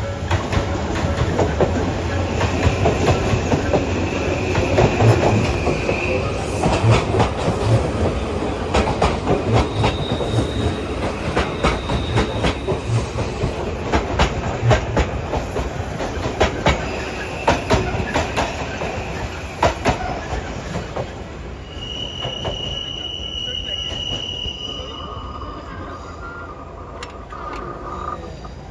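Odakyu Romancecar MSE (60000 series) four-car electric train passing over a level crossing. Its wheels clatter in quick runs of clicks over the rail joints, with high, steady wheel squeals coming and going. The sound fades toward the end.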